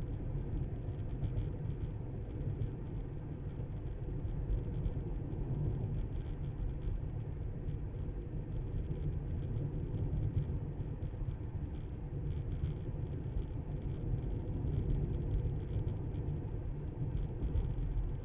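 Steady low road rumble and tyre noise of a Tesla electric car driving along.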